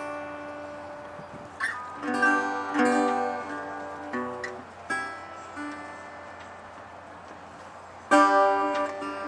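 Guitar music played slowly: single plucked notes ring out and fade, and a loud strummed chord comes about eight seconds in.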